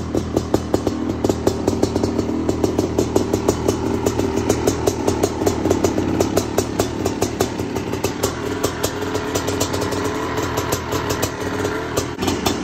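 Honda CR500 single-cylinder two-stroke engine idling steadily, with a rapid, uneven crackle of exhaust pops.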